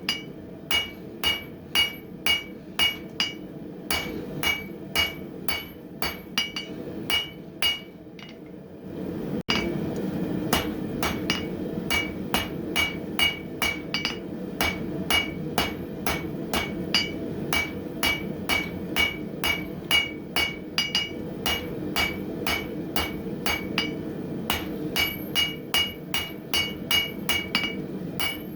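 Hand hammer drawing out hot coil-spring steel on an anvil: steady ringing blows, about two to three a second, over the steady noise of the forge. The hammering pauses briefly about eight seconds in, then resumes.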